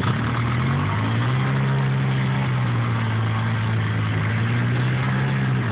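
ATV engine revving up about a second in and held at steady revs, then dropping near the end: the quad is bogged down in a deep mud hole and being pushed out.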